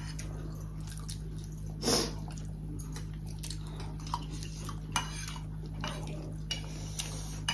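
Metal forks and spoons clinking and scraping on ceramic plates and bowls as people eat, in a few separate sharp clicks. A brief louder rushing sound comes about two seconds in, over a steady low hum.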